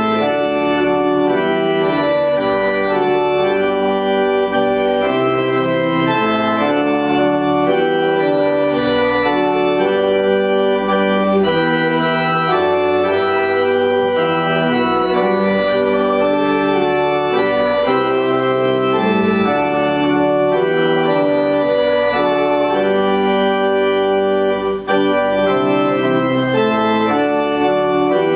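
Church organ playing a hymn accompaniment in full, sustained chords that change in step.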